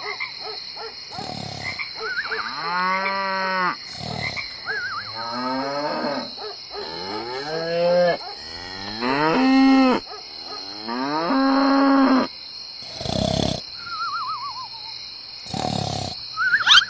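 Cattle mooing: about five long, low calls between two and twelve seconds in, some with a wavering pitch, over a steady high-pitched chirring like night crickets.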